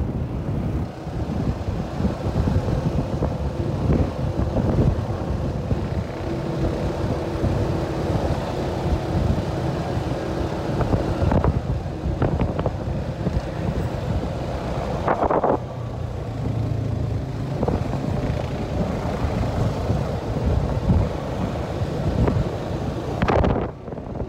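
ATV engine running as the quad bike travels along a road, with wind rushing over the microphone.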